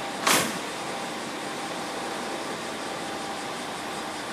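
Steady hum of a diesel railcar's engine running at the station, with one short, loud burst of hiss about a third of a second in.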